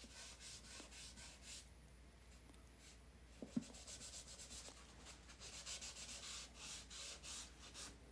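Faint rhythmic rubbing strokes on a wet oil-painted panel as paint is wiped back to mark out the lightest areas, with one soft knock about three and a half seconds in.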